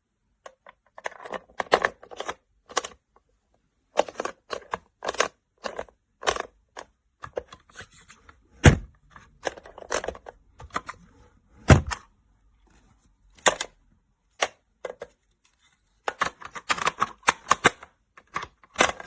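Irregular clicks, knocks and rattles of a small key-lock fire- and waterproof safe being handled, with two heavier thumps about nine and twelve seconds in.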